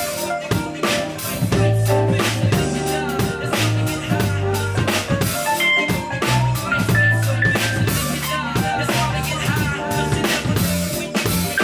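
Live band playing a groove: drum kit with a steady beat, bass lines and keyboard chords.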